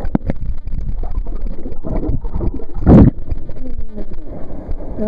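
Wind rumbling on the microphone over sloshing sea water, with one loud sudden burst about three seconds in.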